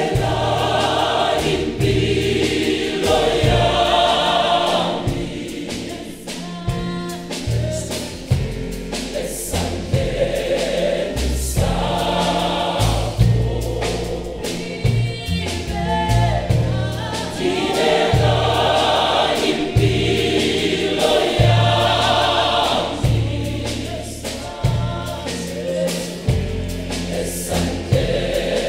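Gospel choir singing in full harmony over a band backing of bass and drums.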